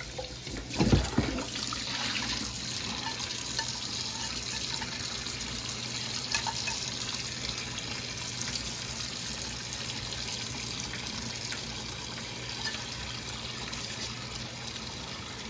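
Kitchen tap running steadily into the sink while a pot is washed, with a dull thump about a second in.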